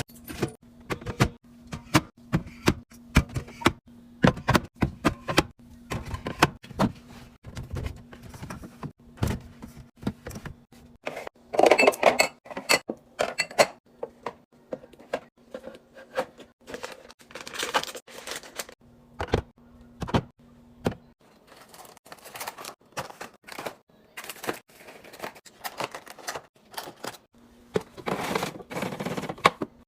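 Food containers, jars and bottles being handled and set down on fridge shelves and in bins: a steady run of clicks, taps and knocks, with a few short bursts of plastic rustling.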